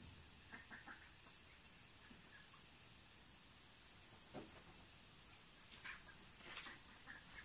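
Near silence: faint ambient room tone with a steady faint high whine, a few faint high chirps and a few soft clicks.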